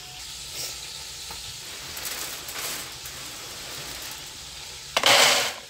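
Pieces of pork fatback and pork trotters sizzling steadily as they fry in a pan, rendering out fat. About five seconds in comes a brief, louder burst of noise lasting about half a second.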